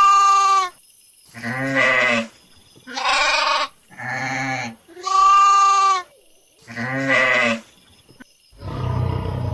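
Goats bleating: six separate calls about a second apart, some high-pitched and some deeper. Near the end a low, noisy rumble starts.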